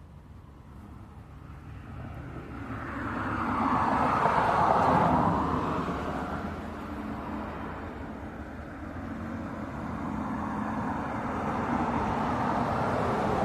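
Road traffic: a vehicle passes, its noise swelling to a peak about four to five seconds in and fading, then traffic noise builds again near the end.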